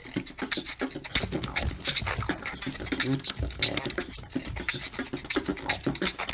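Human beatboxing: a quick, steady run of mouth-made percussion hits, with short pitched vocal sounds between them.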